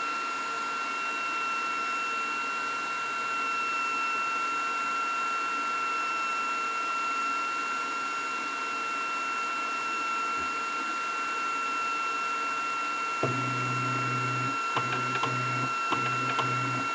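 Flashforge Adventurer 5M 3D printer's cooling fans running, a steady whirr with a steady high whine. About 13 seconds in, a low motor hum starts and stops in short stretches with a few light clicks, the printer's motors moving the head and bed during bed calibration.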